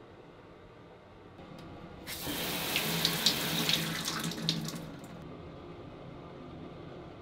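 Handheld shower head spraying water, run from a chrome thermostatic mixer valve: a loud even hiss of spray that starts about two seconds in and stops after about three seconds.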